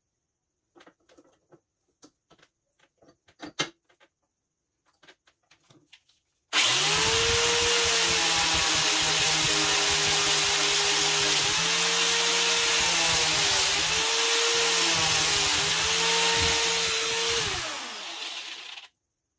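Electric grinder running with a harsh hiss of grinding, its motor pitch dipping several times under load, most likely shaping or sharpening the steel half-moon knife. It starts abruptly about six seconds in after a few light clicks, and winds down near the end.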